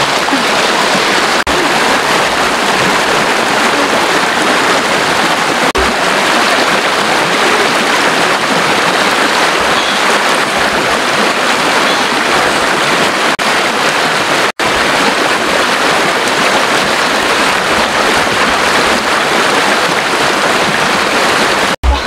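Shallow stream water rushing over rocks: a steady, loud rush that cuts out for an instant about two-thirds of the way through.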